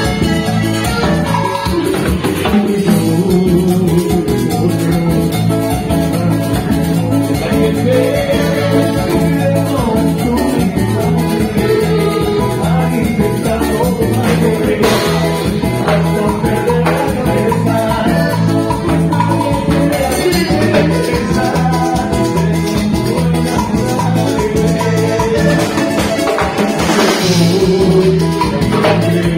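Live cumbia ranchera band playing a steady dance beat on drum kit and bass with keyboards, and a singer's voice over it.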